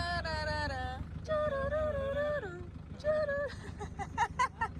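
Wordless humming of a slow melody in held notes that glide up and down, over a steady low rumble. Near the end, a quick run of short clicks.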